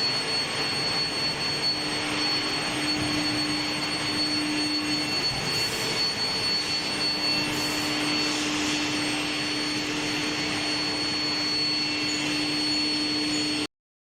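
Steel bar induction heat treatment line running: a steady noisy rush with a constant high-pitched whine and a lower hum, which cuts off suddenly near the end.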